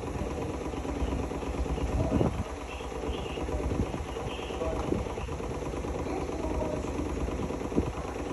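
Hotpoint-Ariston Aqualtis washing machine running, a steady low hum and rumble with a few light knocks.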